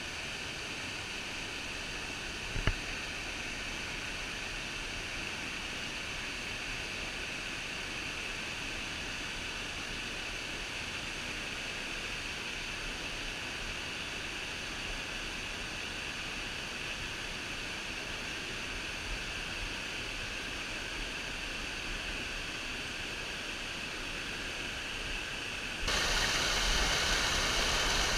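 Steady rushing of the Havasu Falls waterfall, a dense even hiss of falling water. It jumps suddenly louder near the end, with a brief click about three seconds in.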